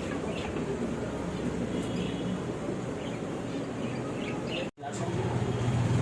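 Small birds chirping faintly over a steady background hubbub. The sound drops out for an instant about three-quarters of the way through, and a steady low hum follows.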